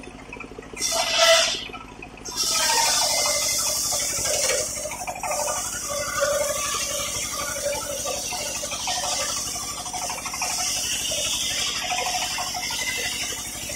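Large circular sawmill blade ripping a teak beam lengthwise: a short loud burst about a second in, then a steady high cutting hiss from about two and a half seconds on, over a low hum.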